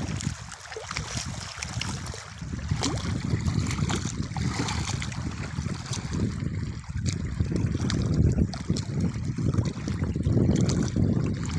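Wind buffeting the microphone in uneven gusts, with water lapping and trickling beneath it.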